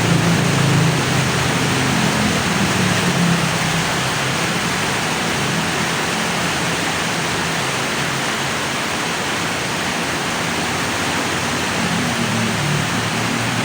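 Steady hiss of rain on a city street with the low hum of light traffic; a vehicle's engine rumble fades out in the first few seconds and another comes up near the end.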